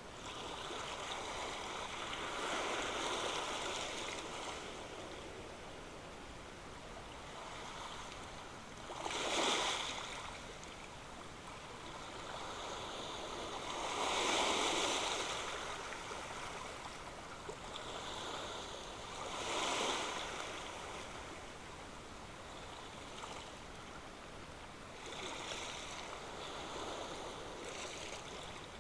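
Ocean surf washing on a shore: a steady wash of water with a wave breaking and surging up about every five seconds.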